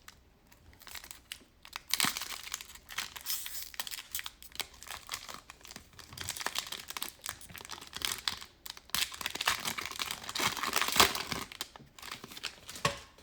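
Foil trading-card pack wrapper crinkling and tearing as a pack of Prizm basketball cards is ripped open by hand, a run of crackly rustles that grows busier after the first couple of seconds.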